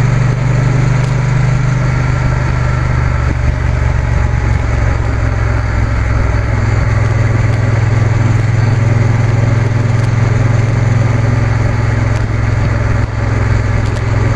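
Triumph T120 parallel-twin motorcycle engine running at a steady cruise, a constant low drone with wind and road noise rushing over the microphone.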